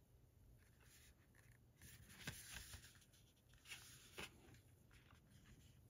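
Near silence with faint handling of a plastic Blu-ray case: soft rubbing and a few light clicks, about two seconds in and again about four seconds in.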